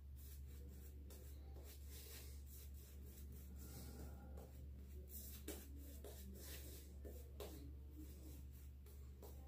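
Omega 10049 boar-bristle shaving brush face-lathering shaving cream: faint, repeated scrubbing strokes of wet bristles over two days' stubble, over a steady low hum.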